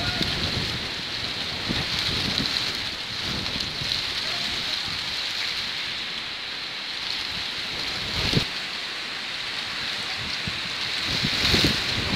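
Heavy rain falling steadily while strong wind gusts rumble against the microphone, with a single sharp knock about eight seconds in.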